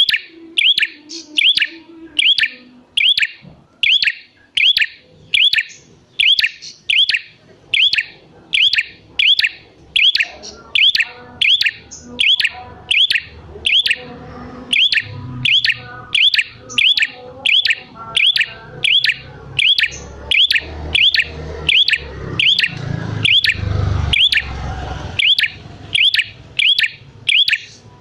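Prinia (prenjak) calling: one sharp, high chirp repeated over and over, about four every three seconds, in an unbroken run. A low rumble swells under it past the middle and fades again near the end.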